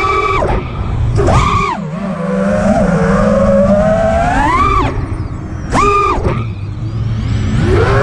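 FPV quadcopter's motors whining, the pitch rising and falling with the throttle: a sharp punch about a second in, a climb near five seconds, a brief drop as the throttle is cut, then another punch near six seconds.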